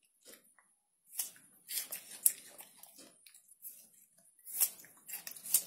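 A monkey biting into and chewing crisp fruit slices, in a series of short crunches that begin about a second in, with the loudest bites near the middle and near the end.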